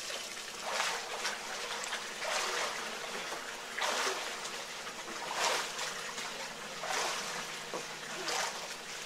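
Water splashing in a small pool as hands and an inflatable baby float churn the surface, with louder splashes about every second and a half over the steady trickle of a spillway waterfall.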